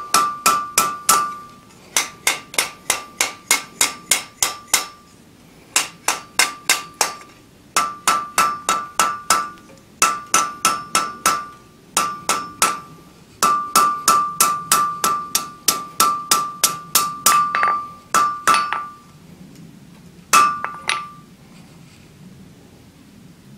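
Blacksmith's hand hammer striking a steel ball end on an anvil, rounding and smoothing the ball, in quick runs of light blows about five a second with the anvil ringing under each one. Brief pauses separate the runs, and the hammering stops near the end after one last single blow.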